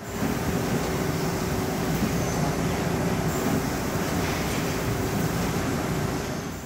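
Automated blade-production machinery running: a steady mechanical din with a constant hum-like tone over an even wash of noise and low rumble.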